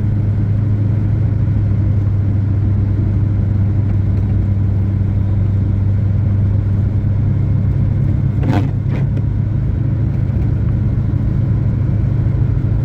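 Steady low drone of a vehicle's engine and tyres heard from inside the cabin while driving on an unplowed, snow-covered road, with a slight shift in the engine's note about eight seconds in.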